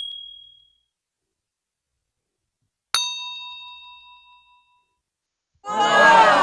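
A single bright metallic ding, struck once and ringing out for about two seconds, followed near the end by a louder sound that slides down in pitch.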